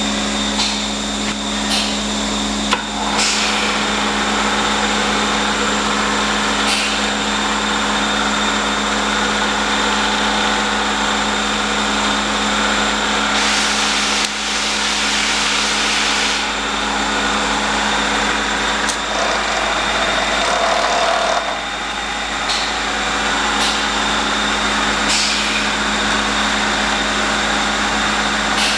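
Bridgeport 1J vertical milling machine running steadily with a constant hum, with occasional sharp clicks and a few seconds of hiss partway through.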